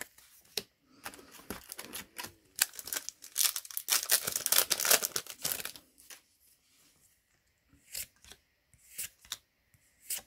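Yu-Gi-Oh trading cards being flipped through by hand and set down on a playmat. A dense run of papery sliding and snapping lasts several seconds, then a few separate light clicks come near the end.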